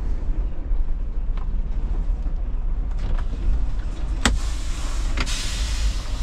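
Semi-truck diesel engine idling in the cab. About four seconds in there is a sharp click, and a second later a loud hiss of air lasting about a second, as the dash air valve is worked and the air brakes set.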